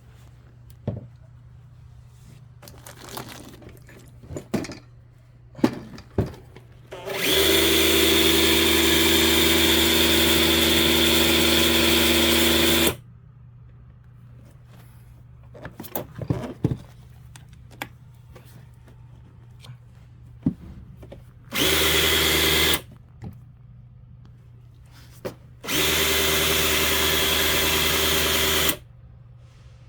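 Ogura 209WDF cordless hydraulic punch's electric motor running steadily three times: about five seconds, then about a second, then about three seconds. Clicks and handling knocks come in between the runs.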